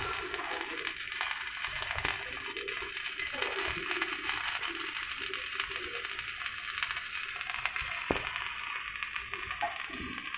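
Stick-welding (SMAW) arc crackling and sizzling steadily as an electrode burns along an overhead joint.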